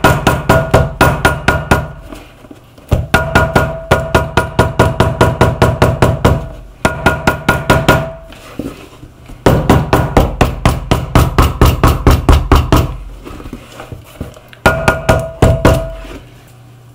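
Hammer tapping down a glued shoe sole in five runs of quick strikes, several a second, with short pauses between runs. This is done to press the bond tight; without it, the sole won't hold.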